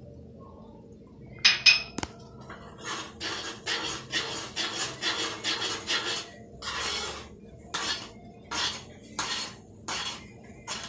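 Metal spoon stirring a thick sauce in a metal pan, scraping the bottom and sides in quick strokes of about three a second, slowing to spaced strokes in the last few seconds. A couple of sharp clinks come about a second and a half in.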